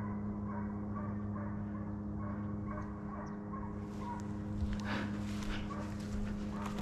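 Hunting hounds baying at a distance while running a deer, in short scattered calls, over a steady low hum. From about the middle on, footsteps crunch through dry grass.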